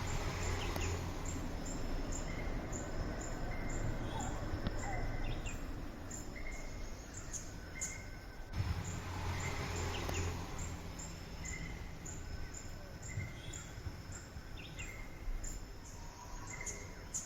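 Honey bees buzzing in a low hum that eases off about six seconds in and comes back strongly a couple of seconds later. Birds chirp intermittently, and an insect keeps up a steady high ticking about twice a second.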